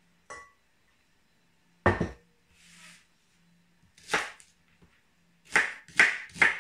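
Kitchen knife chopping boiled potatoes on a cutting board: a handful of sharp knocks, the loudest about two seconds in and a quick run of three near the end. A brief ringing clink comes just after the start.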